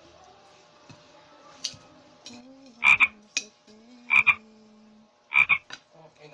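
An animal's loud croaking call, repeated three times about a second and a quarter apart, each call a quick double note.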